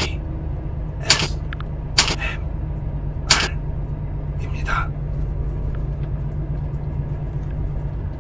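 Steady low drone of a container truck's engine and road noise inside the cab while driving on the highway. Over it come five brief sharp sounds in the first five seconds, roughly one a second.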